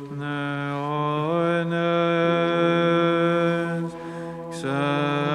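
Byzantine chant: a male voice holding long, drawn-out notes with no clear words. It breaks off briefly about four seconds in, then picks up again.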